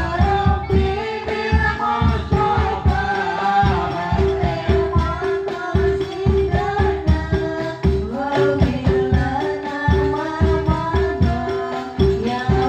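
Music with a singing voice over a fast, steady beat and a repeating note.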